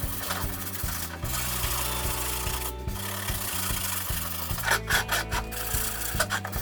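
Rasping, rubbing strokes of hand abrasive work on a part, a few louder strokes near the end, over background music with a steady bass line.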